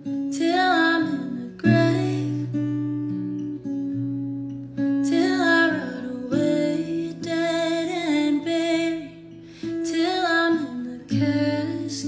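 Acoustic guitar chords ringing under a woman's singing voice, which comes in phrases with gaps between them.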